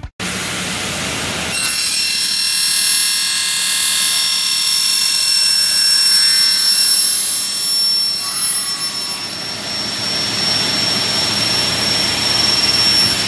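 Large double-head aluminium cutting saw with 600 mm circular blades running, a high steady whine of several tones that comes in strongly about one and a half seconds in and holds with small changes in level.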